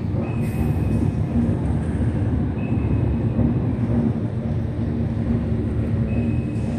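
A steady low rumble with a faint hum running through it, and a few short, high, steady tones.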